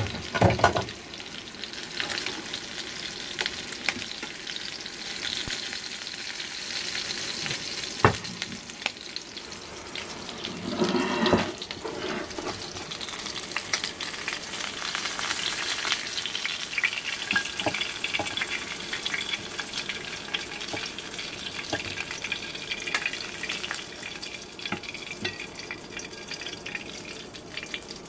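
Butter and cooking juices sizzling in a hot stainless-steel frying pan, a steady hiss. A few metal clanks and scrapes of the pan and a fork come near the start, about eight seconds in, and around eleven seconds.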